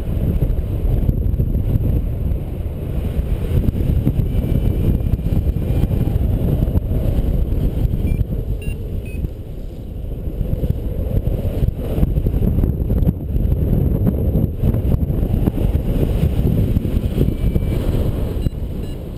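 Wind buffeting the microphone of a paraglider pilot's body-mounted camera in flight: a loud, uneven low rumble that eases briefly about ten seconds in.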